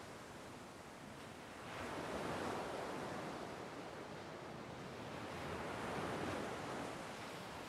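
Rushing, wind-like noise with no tones. It swells about two seconds in and again about six seconds in.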